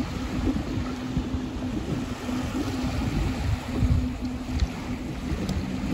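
Wind gusting over the microphone, with a steady low hum underneath that drops slightly in pitch near the end.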